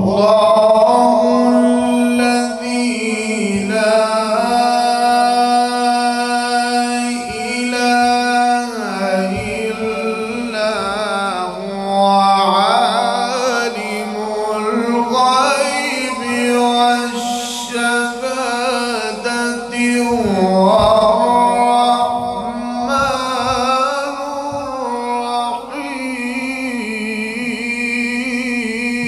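A male Qur'an reciter's voice in melodic tajweed recitation, holding long notes and drawing them out with slides and ornamented runs in an unbroken melodic line.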